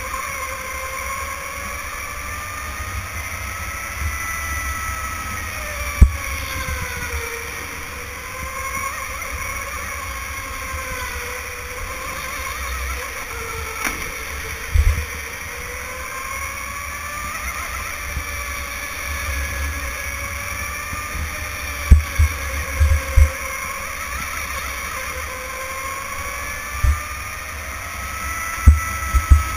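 Electric go-kart motor whining, its pitch rising and falling over and over as the kart speeds up and slows through the corners, over a low rumble. A few short sharp thumps stand out, about six seconds in, mid-way, and several close together near the end.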